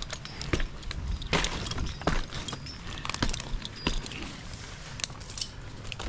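Irregular clinks, knocks and scrapes of a tree climber's metal hardware (carabiners and lanyard gear) jingling and knocking as he moves on the tree.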